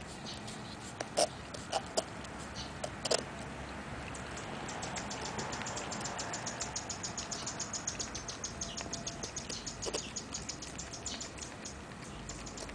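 A golden retriever–cocker spaniel cross licking whipped cream out of a paper cup, her muzzle inside it: a few sharp clicks early on, then a fast, regular run of licking ticks from about five seconds in until near the end.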